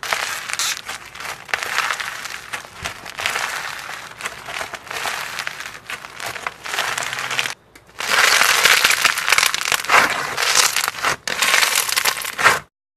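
Crunchy slime being squeezed and worked by hand, giving dense crackling and popping. It breaks off briefly about two-thirds of the way through, then starts again and stops abruptly near the end.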